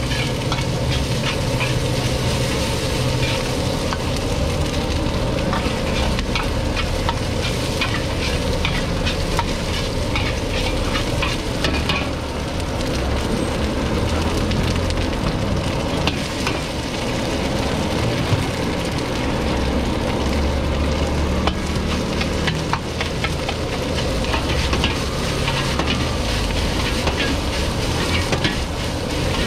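Fried rice sizzling in a hot wok while a metal ladle scrapes and clacks against the pan in frequent short strokes.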